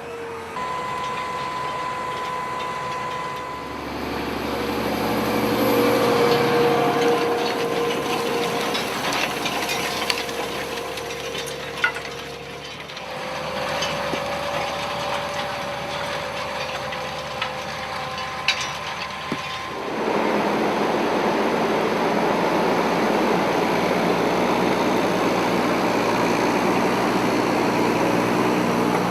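Farm tractor engines running in a run of short clips, the sound changing abruptly several times, with a few sharp knocks and clicks.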